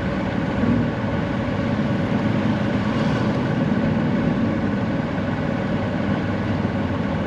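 Steady engine and road noise of an open, golf-cart-style pit vehicle driving slowly on pavement.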